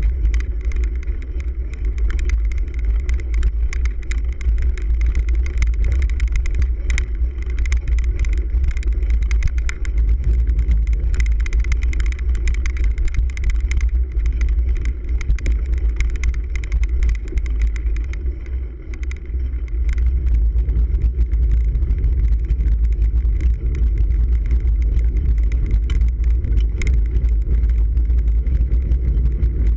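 Cyclocross bike ridden over bumpy grass and dirt, heard from a camera on the handlebars: a constant deep rumble of wind and tyres on the microphone, with many small clicks and rattles from the bike.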